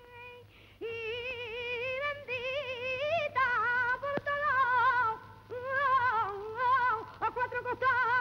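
A solo high voice singing a saeta, the Andalusian Holy Week prayer-song, unaccompanied. It holds long wavering notes with many ornamental turns and takes a few short breaths between phrases.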